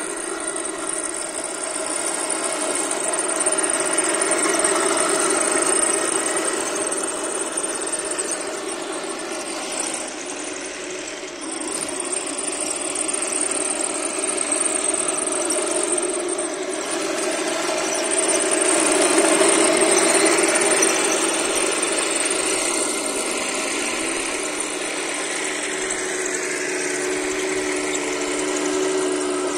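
1/16-scale radio-controlled M1A2 Abrams tank driving on asphalt: a continuous, steady mechanical drone from the model, with a noisy whir of its drive and tracks underneath. The pitch shifts a few times near the end.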